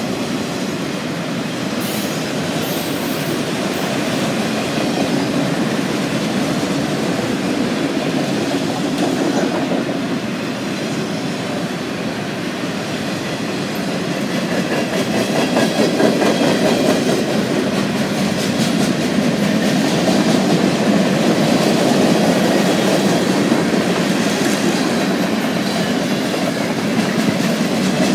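Freight train cars rolling past on the main line, a steady rumble of steel wheels on rail that grows louder about halfway through.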